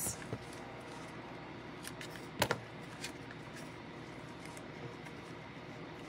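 Faint handling sounds of card-making materials on a desk: light rustling and a few small clicks, the loudest a sharp double click about two and a half seconds in.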